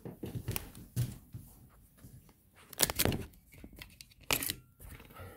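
Handling noise of a camera being picked up and moved: irregular rustling, clicks and knocks, the loudest about three seconds in and again a little after four seconds.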